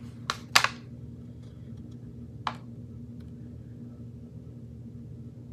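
A sheet of paper rustling as it is held and shifted in the hands: two quick crackles near the start, the second the loudest, and another about two and a half seconds in, over a steady low hum.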